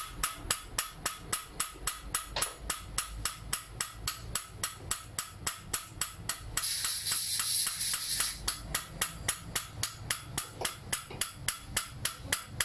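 A valve being seated in an Italika 150 FT motorcycle cylinder head with a hand lapping stick: a steady rhythm of sharp taps, about four or five a second, as the valve is knocked against its seat. A stretch of hissing comes in about halfway and lasts about two seconds.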